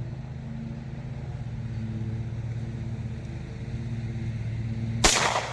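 A single rifle shot from an AR-15 in .300 AAC Blackout about five seconds in, firing an Ammo Inc 'subsonic' round that the chronograph clocks at 1135 ft/s, which the shooter takes to be supersonic. Before it, a steady low mechanical hum.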